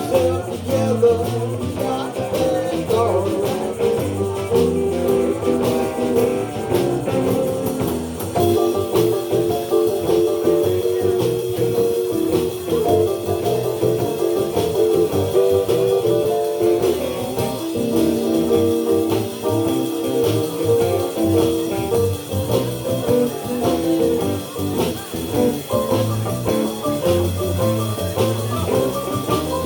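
A live blues band playing.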